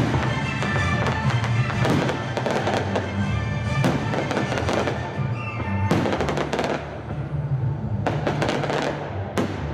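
Aerial fireworks shells bursting and crackling in repeated bangs, over loud orchestral film music.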